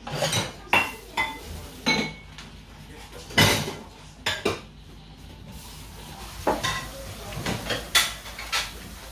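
Dishes and bowls clinking and clattering as they are handled: about a dozen separate sharp clinks and knocks, several with a short ring.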